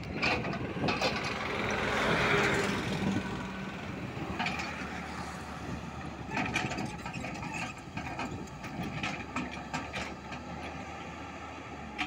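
Tata Hitachi crawler excavator at work, its diesel engine running steadily as the bucket digs and swings, with frequent sharp metallic clanks and rattles that come thicker in the second half. A louder rushing stretch about two seconds in.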